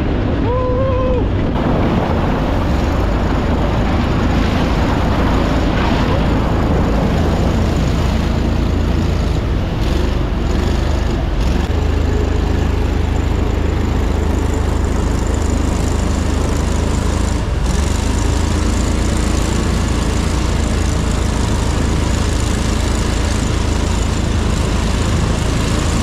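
Amphibious all-terrain vehicle's engine running steadily under way, an even loud drone with a low hum underneath.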